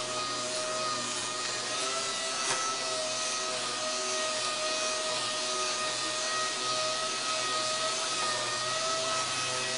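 Air-powered 6-inch orbital sander running at full speed, a steady whine over hiss, as its foam-backed abrasive disc scuff-sands carbon fiber. A brief tick about two and a half seconds in.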